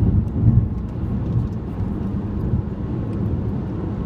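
Steady low rumble of tyre and engine noise from inside a car's cabin while driving on a highway.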